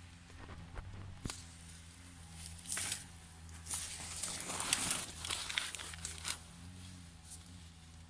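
Irregular crackling and rustling, heaviest in the middle, over a low steady hum.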